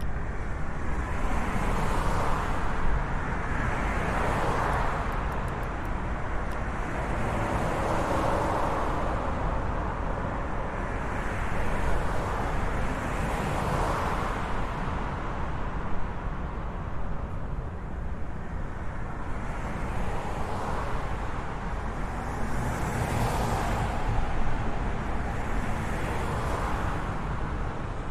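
Road traffic: cars passing one after another, each a swell of tyre and engine noise every two to four seconds, over a constant low rumble.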